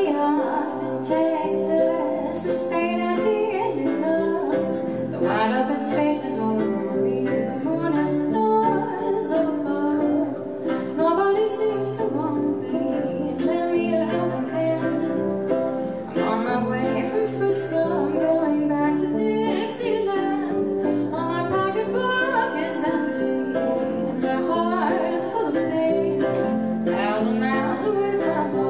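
A woman singing to her own harp ukulele accompaniment. The harp ukulele is a ukulele with extra bass strings on a hollow arm, played as a steady stream of plucked chords under the voice.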